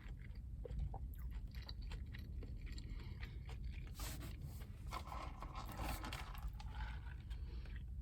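A person chewing a mouthful of Big Mac close to the microphone, with many small crunches and clicks and a denser noisy stretch a little past the middle.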